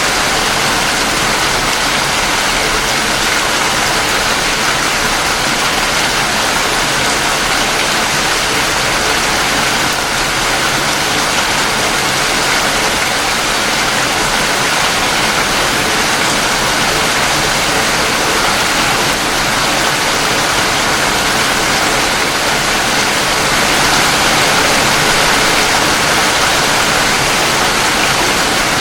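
Steady rain, an even continuous hiss without breaks, swelling slightly near the end.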